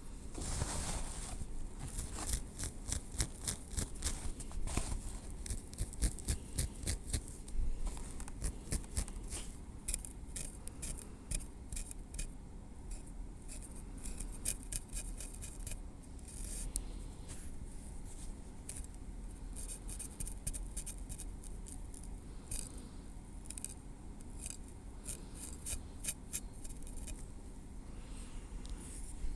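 Metal tweezers picking and scraping through hair at the scalp, close up: many small sharp clicks in quick, irregular runs.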